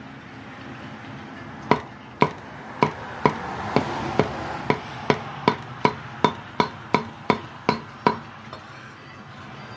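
Cleaver chopping on a cutting board: a run of about fifteen sharp chops, two to three a second, starting a little under two seconds in and stopping about eight seconds in.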